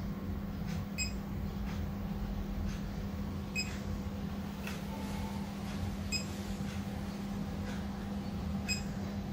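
Short high electronic beep from the powered-on SJRC F11 Pro drone kit, repeating about every two and a half seconds (four times), over a steady low hum.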